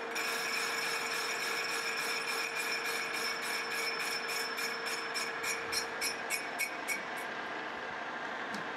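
Metal lathe taking a light cut across the outside diameter of a rough cast iron wheel at slow speed: a steady cutting sound with ringing tones and a regular tick about four times a second as the cutter meets the uneven casting. The ticking and ringing stop about seven seconds in.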